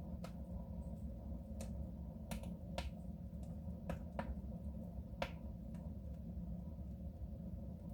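Wood fire crackling in a soapstone stove: sharp pops and snaps at irregular intervals over a steady low rumble.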